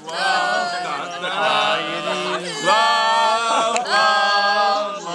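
A small group of men singing a cappella in harmony, holding long notes, with a low voice keeping a steady note underneath.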